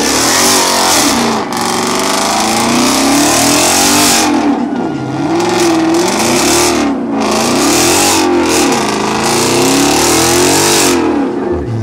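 Ford Mustang's engine revving hard up and down, over and over, during a burnout, with a loud hiss from the spinning tyres.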